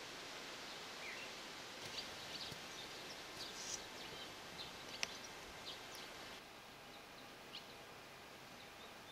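Swallows twittering: short, high chirps scattered over a steady hiss of outdoor background noise, with one sharp click about five seconds in.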